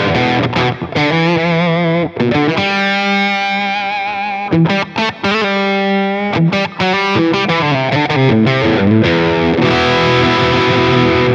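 LTD EC-1000 Deluxe electric guitar with Seymour Duncan P-Rails pickups, switched to the P90 setting, played through a heavily overdriven Friedman Dirty Shirley Mini amp with delay and reverb. It plays sustained chords and held notes with vibrato in the middle, with a few short breaks between phrases.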